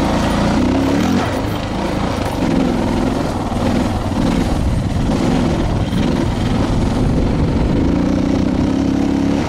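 Suzuki DR650's single-cylinder four-stroke engine running under way on a dirt trail, its note rising and falling with the throttle, over a steady low rumble.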